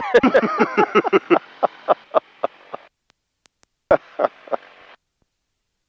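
Laughter over an aircraft headset intercom: a run of laughs that slows and fades, then a short second laugh about four seconds in. The intercom cuts to dead silence between them, with no engine noise heard.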